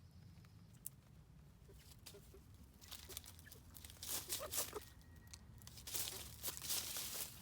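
Dry rustling and crunching in short irregular bursts, with a few sharp clicks. The busiest stretches come about four seconds in and again from about six to seven seconds.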